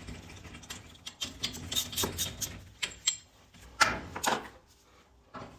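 Irregular metal clicks and knocks from winding bars working a garage door torsion spring's winding cone as the spring is unwound by hand, with a louder cluster about four seconds in.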